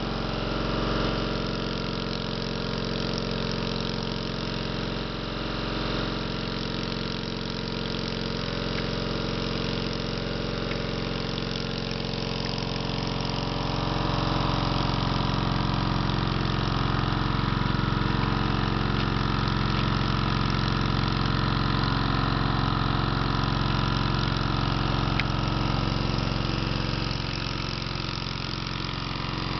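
Small engine of a floating hookah air compressor running steadily at a constant speed, supplying air through hoses to divers. It gets a little louder through the middle.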